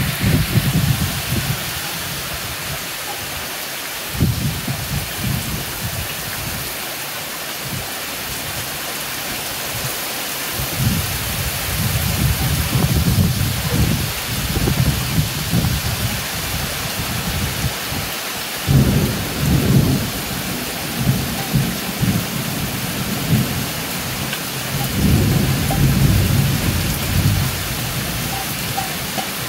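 Heavy thunderstorm rain pouring steadily. Low rumbling swells up several times and dies away, at its loudest near the start and from about two-thirds of the way through.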